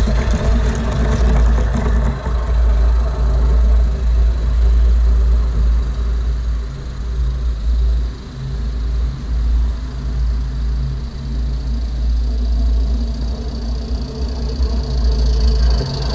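A garden-scale model train's wheels run over the rails as its coaches pass close by at the start, fading away. The rail noise builds again near the end as the next live steam train approaches. Underneath is a steady low rumble throughout.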